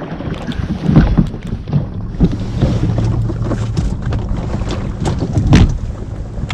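Wind buffeting the microphone and water moving around a small hunting boat on open water, a steady low rumble with a few short thumps, the loudest about a second in and another near the end.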